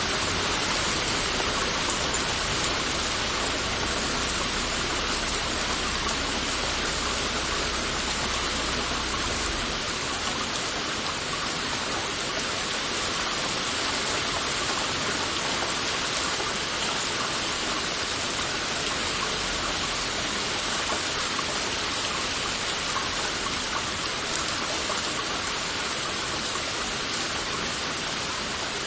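Heavy rain falling steadily, a dense, even hiss of many drops. A faint low rumble underneath stops about nine seconds in.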